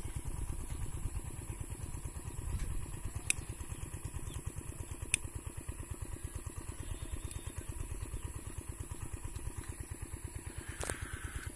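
Motorcycle engine idling with a quick, even low thumping. Two sharp clicks stand out, about three and five seconds in.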